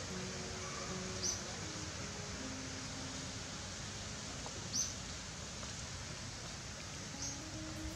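Outdoor ambience: a steady hiss of background noise, with a short, high chirp from a small creature three times, a few seconds apart.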